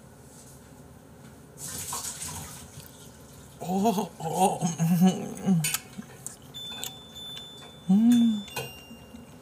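Hot water poured for a second or so, about two seconds in. Then a man's voice makes short hummed 'mm' sounds through a full mouth while chewing, loudest about four to five and a half seconds in and once more near the end.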